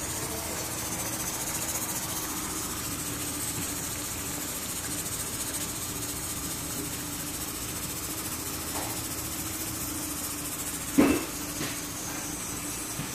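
Steady hiss of a pot of soup heating on a gas stove while evaporated milk is poured in from a can, with a faint low hum under it. One sharp knock about eleven seconds in.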